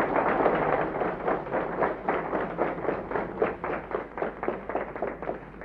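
A group of people applauding, the clapping thinning out and fading toward the end.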